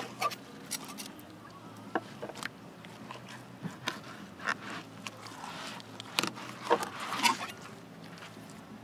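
Fillet knife and hands working a mutton snapper fillet off its skin on a cleaning table: scattered small scrapes and taps, with a cluster of louder ones about six to seven seconds in.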